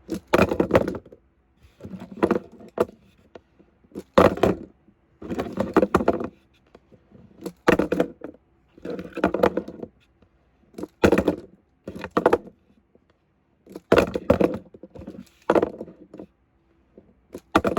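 Toy monster trucks clattering: about ten bursts of rattling knocks and thunks as the small trucks are flipped, tumble and land on a hard surface.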